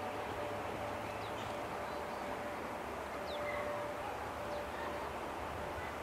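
Outdoor background: a steady rushing hiss, with small birds chirping a few times.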